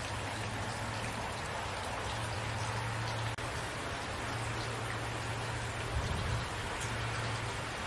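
Steady rain falling, an even hiss with scattered drop ticks over a low steady hum. The sound drops out for an instant about three and a half seconds in.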